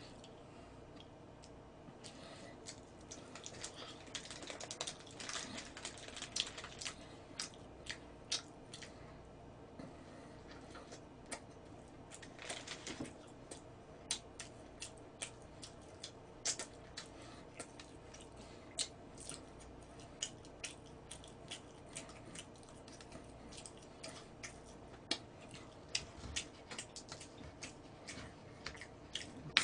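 Faint irregular clicks and taps, a few each second, over a low steady hum.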